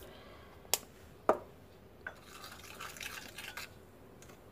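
Plastic spoon stirring a wet paste of baking soda, lemon juice and salt in a small glass bowl, with a faint scratchy scraping against the glass in the middle. Two sharp taps come about a second in.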